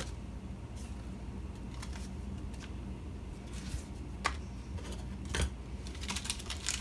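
Light clicks and short rustles of small parts and packaging being handled, a few scattered at first and a quick run of clicks near the end, over a low steady hum.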